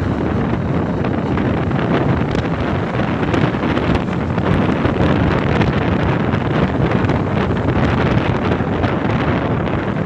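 Steady wind buffeting the microphone on a motorcycle moving at road speed, with the Bajaj Pulsar NS160's engine and tyre noise running underneath.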